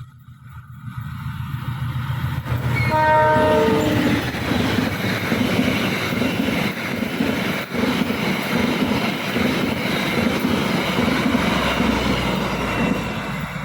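A train passing close by: it sounds its horn once for about a second as it arrives, then its wheels clatter over the rail joints in a steady rhythm, fading near the end.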